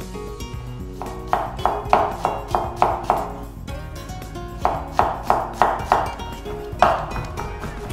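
A chef's knife chopping garlic on a wooden cutting board: two runs of quick chops at about three a second, then one more near the end. Acoustic guitar music plays underneath.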